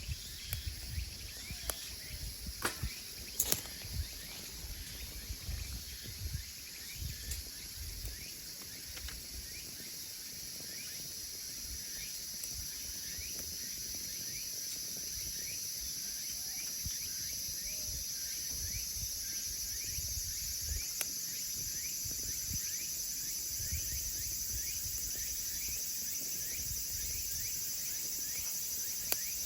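Firewood burning in a small wood stove, with sharp crackles and pops mostly in the first several seconds. Behind it a steady, high insect chirring grows louder over the second half.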